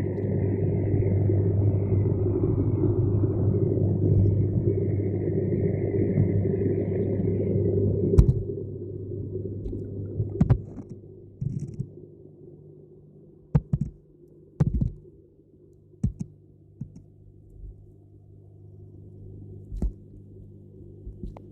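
Pond sounds that the uploader takes for catfish: a steady low rumble that drops away about eight seconds in, followed by a scatter of sharp separate knocks and clicks every second or two.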